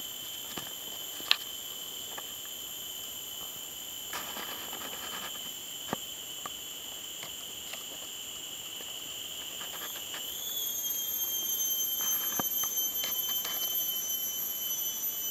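Forest insects shrilling in a steady, high, even tone. The pitch wobbles and shifts slightly about ten seconds in, and the sound grows louder from there. Faint scattered clicks and rustles of leaf litter sound underneath.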